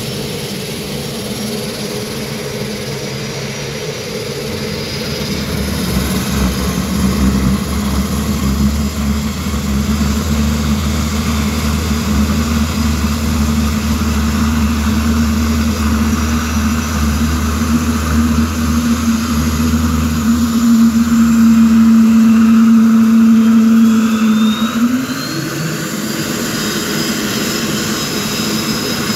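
Saab 340's General Electric CT7 turboprop engines running on the ground: a steady engine drone with a deep rumble that grows louder about six seconds in. About twenty-five seconds in the drone steps up in pitch, a high whine rises and levels off, and the rumble drops away.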